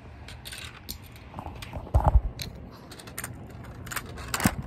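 Plastic Lego pieces being handled: scattered small clicks and rattles, with a louder knock about two seconds in and another near the end.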